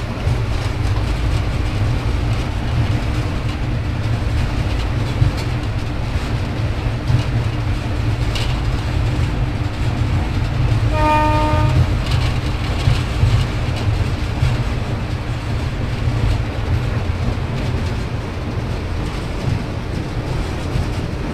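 Cab noise of a WAP4 electric locomotive on the move: a steady heavy rumble of the running train with a constant hum. About halfway through, a short horn-like tone sounds for about a second. The train is slowing with the brake applied.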